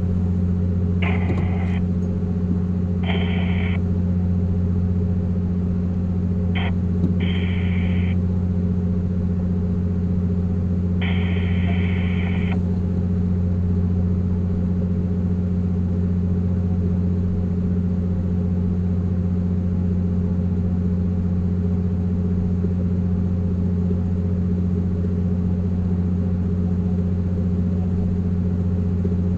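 Steady low drone of a ship's machinery, holding an even pitch and level throughout. Five short, higher-pitched noises stand out over it in roughly the first twelve seconds.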